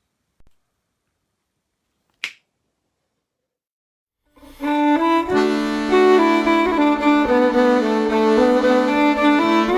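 Near silence broken by a single sharp click about two seconds in, then an accordion and fiddle tune starts about four and a half seconds in, with held accordion chords under the melody.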